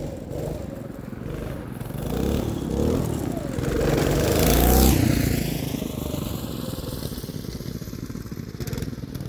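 Twin-engine go-kart driving by at speed: its engines grow louder as it approaches, pass close about five seconds in with a sharp drop in pitch, then fade as it drives away.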